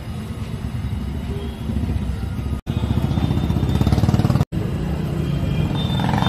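Street traffic noise with a motor vehicle engine running close by, loudest around four seconds in. The sound breaks off for an instant twice.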